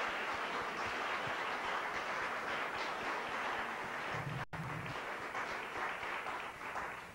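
Audience applauding, a steady patter of many hands clapping, with a momentary dropout a little past halfway; it fades out near the end.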